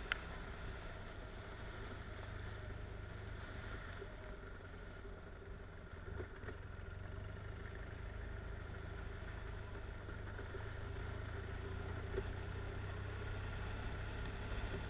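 Motorcycle engine running steadily at low speed with a constant low rumble, and a few light knocks.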